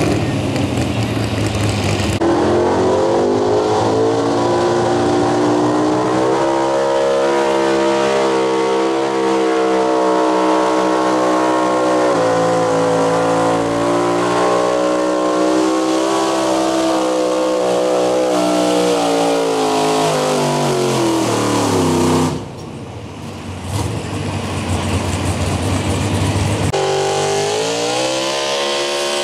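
Pro Stock 4x4 pulling truck engines at full throttle, hauling a sled down the track. The first revs up hard about two seconds in and holds a high, wavering pitch for some twenty seconds before dropping off and cutting out. A few seconds later another truck's engine revs up sharply as it launches.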